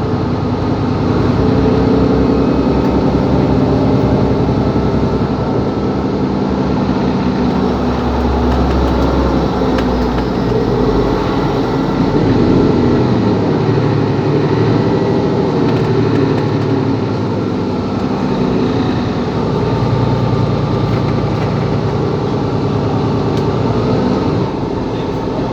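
Diesel engine of a Mercedes-Benz Capacity L articulated city bus running while the bus is under way, its note rising and falling several times as it pulls away, changes gear and eases off.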